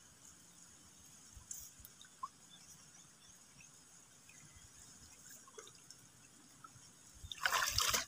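Faint drips and small water sounds in a shallow river, then near the end a louder splash lasting under a second as a speared tilapia is lifted from the water and the spearfisher wades.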